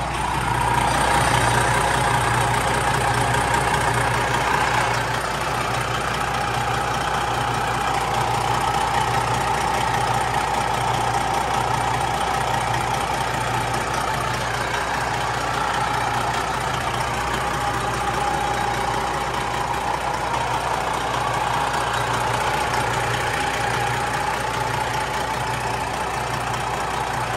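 Semi truck's turbocharged diesel engine idling steadily, heard up close in the open engine bay, with a steady whine over the low engine pulse.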